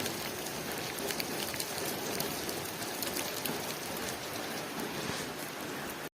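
Steady rain pattering on a window pane, a dense hiss dotted with many small drop ticks.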